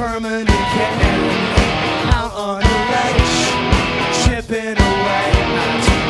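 Rock band playing live: sustained electric guitar over bass and a steady kick-drum beat of about two thumps a second.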